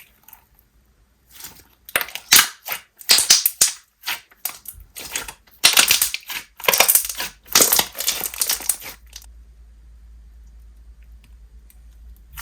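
Pigmented clear slime being squeezed and pressed by hand, giving off clusters of sharp, crackly bubble pops. The pops stop about nine seconds in.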